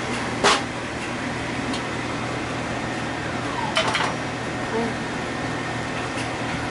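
Steady appliance-like hum, with sharp clinks about half a second in and twice around four seconds as a mesh strainer and a blender jar knock against a cooking pot while blended sauce is poured through the strainer.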